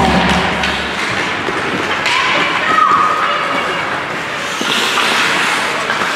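Ice hockey play in an arena: skates scraping on the ice and a few stick and puck knocks, after a burst of arena music cuts off about a second in.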